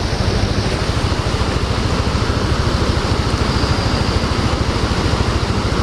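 Motorcycle engine running steadily with a fast, even beat, over the rush of a fast, muddy stream flowing over rocks.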